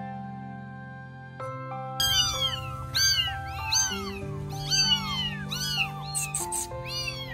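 Baby kittens meowing over and over, the cries of hungry kittens, starting about two seconds in, several short rising-and-falling mews a second, overlapping. Soft background music plays throughout.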